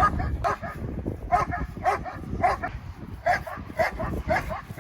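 A dog barking over and over in short, high-pitched barks, about two a second.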